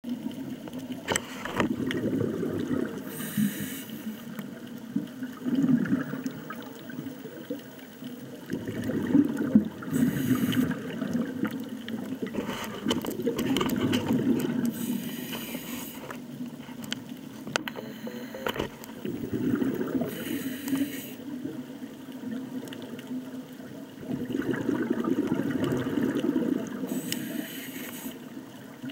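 Scuba regulator breathing underwater. Each breath is a short hiss on the inhale, followed by a longer gurgle of exhaled bubbles, in a slow regular cycle of about five breaths. A few sharp clicks are scattered through.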